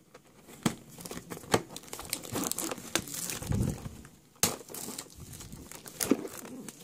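Clear plastic shrink wrap being torn and crinkled off a cardboard collector box, with irregular crackling and a few sharper snaps.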